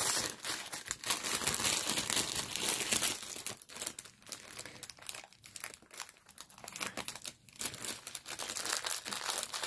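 Plastic wrapping crinkling and rustling as it is handled. The crinkling is busiest in the first three seconds, thins out in the middle and picks up again near the end.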